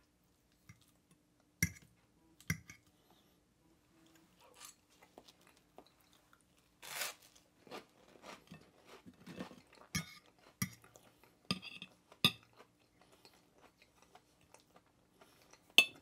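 Metal fork clicking and scraping on a ceramic plate as fried eggs are cut and picked up, along with crunchy chewing. There are scattered single clinks, a longer crunchy sound about seven seconds in, and a quicker run of clinks after that.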